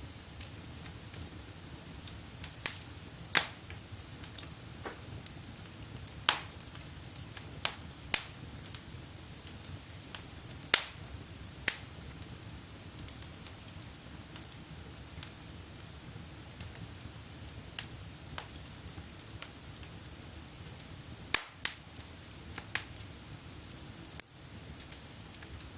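Wood fire in a fireplace crackling. Irregular sharp pops and snaps ride over a steady low hiss, and a few are much louder, the loudest about 21 seconds in.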